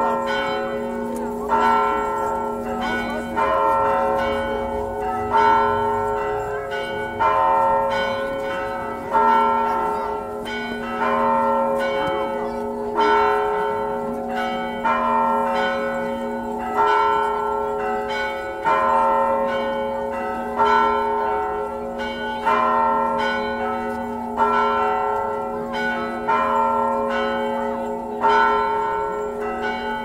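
Church bells pealing, struck about once a second with a louder stroke about every two seconds, each stroke ringing on into the next.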